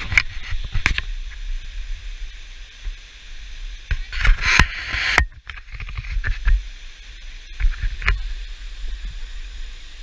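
Waterfall rushing steadily in the background, under wind and handling noise on the camera's microphone: a fluctuating low rumble with scattered knocks, and a louder rubbing rush about four seconds in.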